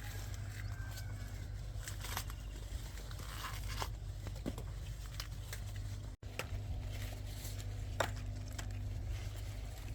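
Dry corn husks and leaves rustling, tearing and crackling in short irregular bursts, over a steady low hum.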